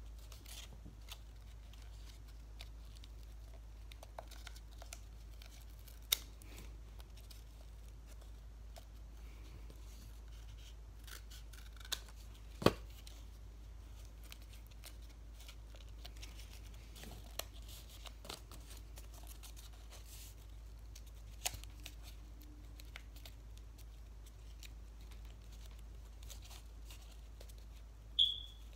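Scissors snipping small pieces off sheets of yellow paper: scattered sharp snips and clicks with light paper handling between them, the sharpest about halfway through and near the end.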